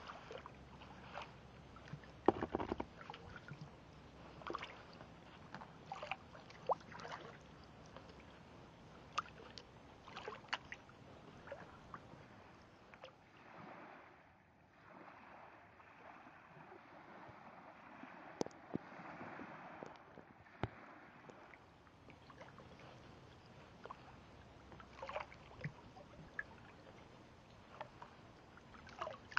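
Faint water sounds of a kayak being paddled on a lake: irregular paddle splashes, drips and small knocks, with a steadier rush of water for several seconds around the middle.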